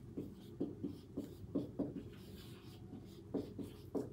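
Marker pen writing on a whiteboard: a run of short strokes, a pause of about a second, then more strokes near the end.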